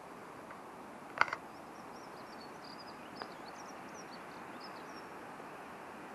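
A small bird chirping in a run of quick high notes over a steady outdoor hiss, with a sharp click about a second in and a fainter one near the middle.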